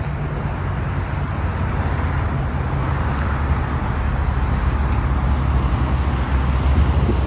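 Road traffic passing on a multi-lane road: a steady low rumble of engines and tyres that swells slightly a few times as cars go by.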